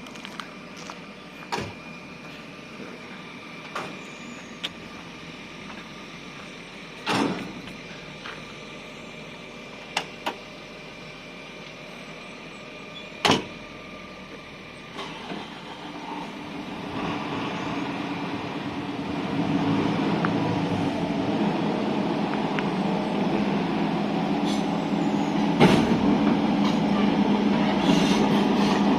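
A few sharp knocks over a low background, then, about halfway through, the Volvo excavator's diesel engine noise builds up and runs on steadily and loudly.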